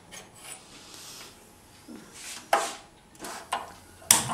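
Gas stove burner being lit with a hand-held spark lighter: a few sharp clicks and knocks, the loudest near the end.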